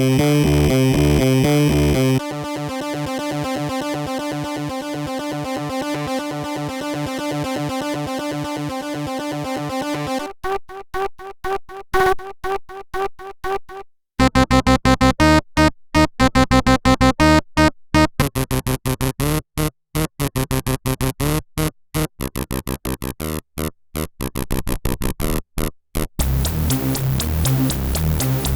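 Electronic synthesizer sequences: fast pulsing patterns that change character every few seconds. Through the middle the sound is chopped into stop-start stutters with brief silences between them.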